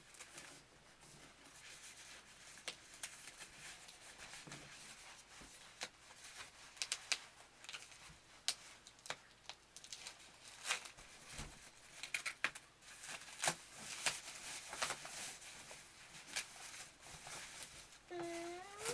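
Packing material being handled during an unboxing: scattered crinkling, tearing and light clicks of paper or plastic wrap.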